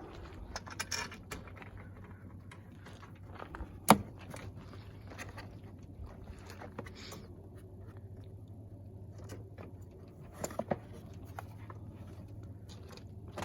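Scattered small clicks and knocks of screws, parts and tools being handled while a Predator 3500 inverter generator's plastic housing is put back together, with one sharp knock about four seconds in, over a low steady hum.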